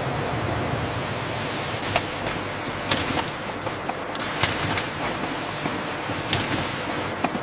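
Factory machinery running with a steady noise, broken by sharp clanks at irregular intervals, about five in all.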